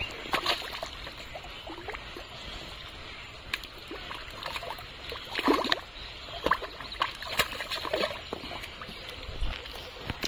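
Thick wet mud squelching and sloshing as hands grope and pull through it, with irregular splashes and slaps.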